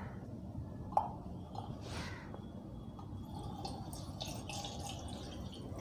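Water poured from a bottle into a stainless steel bowl over a lump of tamarind, splashing and trickling faintly from about three seconds in, after a light knock about a second in.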